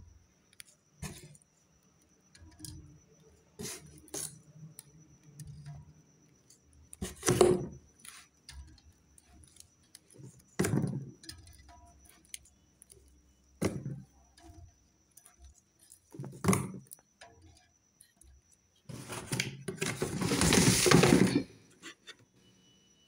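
Glass Appy Fizz bottles clinking and knocking against one another in scattered knocks, with a longer, louder stretch of clattering near the end.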